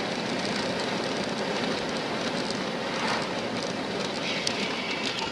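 Steady tyre and wind noise heard inside a car cruising at highway speed.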